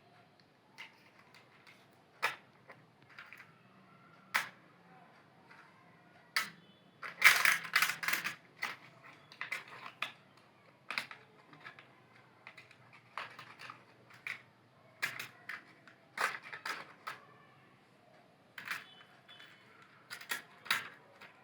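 Plastic toy cars and trucks being handled, giving scattered short clicks and clatters. About seven seconds in there is a louder, busier run of rattling.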